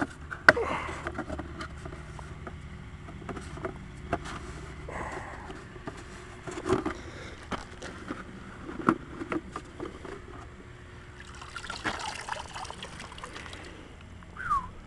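A hydroponic bucket and plant being handled: knocks and clicks of the plastic bucket and net pot, leaves rustling, and some splashing and trickling of water as the root mass is lifted out of the bucket.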